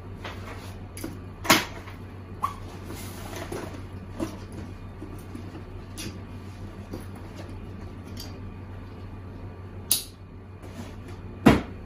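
Backpack being packed by hand: straps and plastic buckles clicking and knocking, with rustling of the pack's fabric, as foam sleeping pads are strapped onto it. There are several sharp clicks, the loudest about a second and a half in and just before the end.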